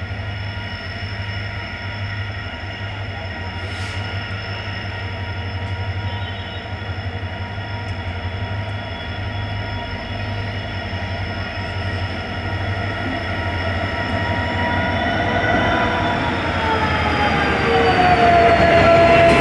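Diesel locomotives at the head of a goods train running by on the next track: a steady engine drone with a high whine over it, growing louder as they approach. Near the end the whine drops in pitch as the lead locomotive passes close by.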